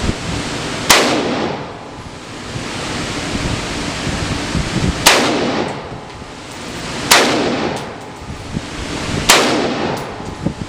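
Four single shots from an AR-15-style rifle, fired a few seconds apart while sighting in its scope. Wind buffets the microphone throughout.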